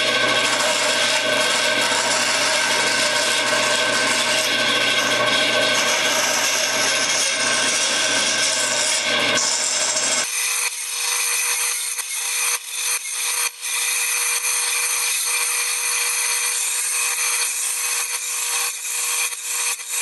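Delta bandsaw running and cutting half slots into a thin wooden strip. About halfway through the low motor hum drops away, leaving a steady higher tone under the cutting noise, with a few brief dips.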